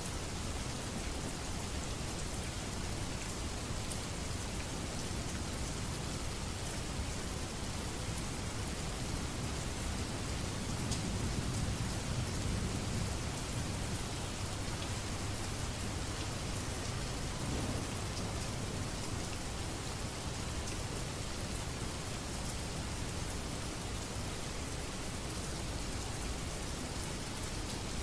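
Steady rain falling, a dense even hiss of drops. A low rumble swells briefly near the middle.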